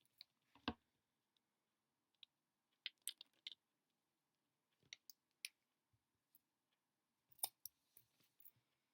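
Near silence broken by faint, scattered clicks and taps in small clusters, four times.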